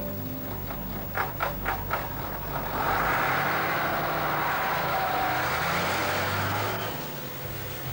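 DAF truck's diesel engine running with a low steady hum; four short knocks about a second in, then a loud rushing hiss for about four seconds.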